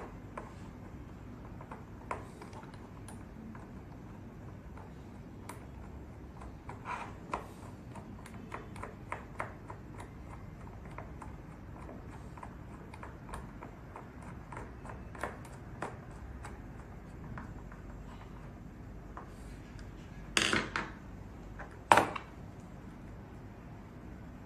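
Small screws being fitted and driven into a metal HU66 pick-and-decoder tool with a small screwdriver: scattered light metallic clicks and ticks, with two louder sharp knocks near the end.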